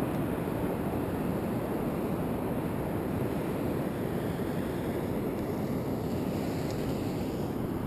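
Steady low rush of ocean surf mixed with wind buffeting the microphone.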